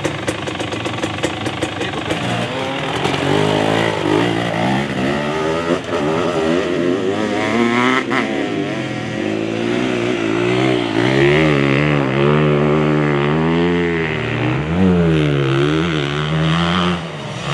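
A 2023 KTM 250 SX single-cylinder two-stroke engine, low and even for about the first two seconds, then revving up and down over and over with the throttle.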